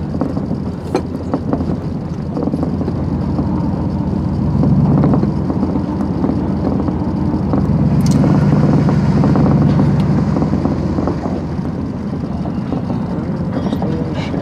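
Truck loaded with scrap metal, its engine running as it drives slowly, with a steady low drone that swells twice and scattered rattles and clicks.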